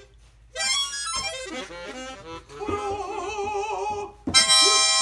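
Harmonica played live: after a brief pause, a quick run of notes, then a wavering held chord, and a loud bright chord about four seconds in.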